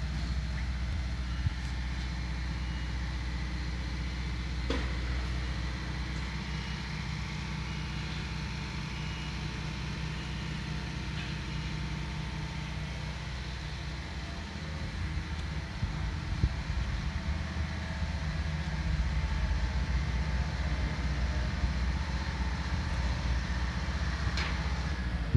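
A heavy diesel engine of earthworks or piling machinery running steadily, a low, even rumble that grows slightly louder in the second half. There are a couple of faint knocks and no regular pile-driving blows.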